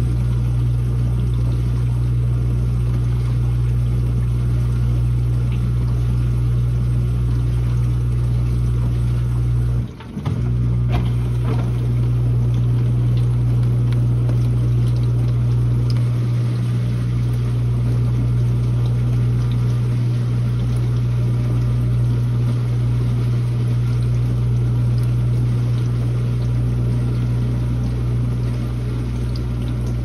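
Dishwasher running a wash cycle: a steady low hum of its pump motor under a wash of water noise. It dips out for a split second about ten seconds in, then carries on.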